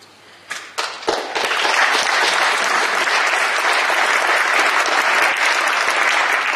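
Audience applauding: a few scattered claps, then a full round of clapping from about a second in, easing off near the end.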